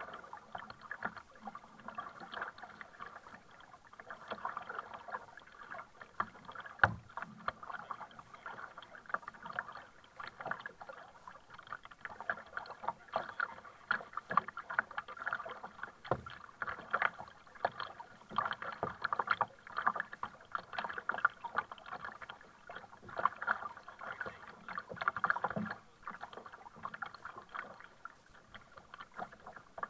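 Double-bladed kayak paddle dipping into sea water, splashing and dripping in repeated surges as the blades enter the water on alternate sides, with water lapping against the plastic sit-on-top hull.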